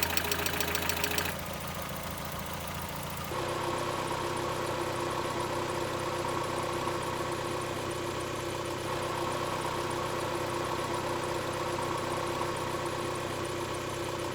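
Mazda Miata's 1.6-litre four-cylinder engine idling, with a fast, even ticking over the steady engine note: lifter tick, which the owner puts down to clogged lifters. The sound changes character about a second in and again about three seconds in.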